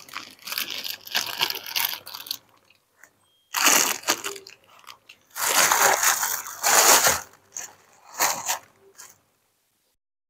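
Thin plastic food bags crinkling in several separate bursts as they are handled, with chewing picked up close on a clip-on microphone.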